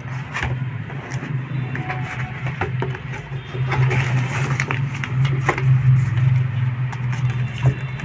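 Cardboard carton flaps and plastic packing wrap being handled, giving scattered rustles, scrapes and light knocks over a steady low hum.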